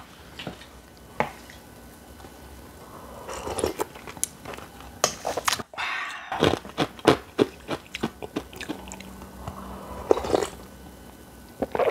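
Close-miked eating sounds of naengmyeon cold noodles: a few sips of the icy broth and many short crisp crunching and chewing clicks, after a quiet first few seconds.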